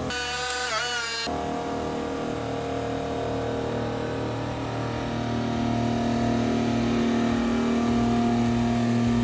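Engine of a military truck running a Prentice knuckleboom log loader while logs are loaded, with a steady pitched drone. About five seconds in it revs up a little and gets louder. Near the start there is a brief pitched sound that dips in pitch.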